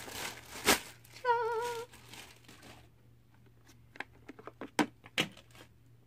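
A clear plastic bag crinkling and rustling as a single-serve coffee maker is pulled out of it, with one sharp click and a short hummed note in the first two seconds. About four seconds in comes a quick run of sharp clicks and taps as the machine's plastic parts are handled.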